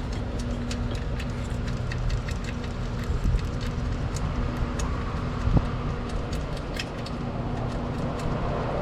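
Hand tools working on a car's front end to undo a small ground-wire fastener: irregular light metallic clicks and taps, with a sharper knock about five and a half seconds in, over a steady background hum.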